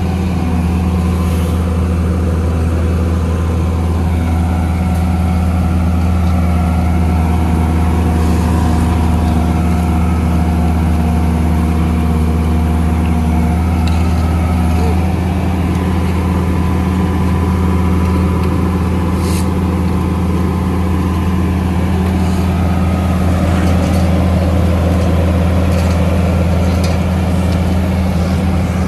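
Diesel engine of a Niigata NFB6C asphalt paver running steadily under load, a deep constant drone with a slight shift in its tone about halfway through.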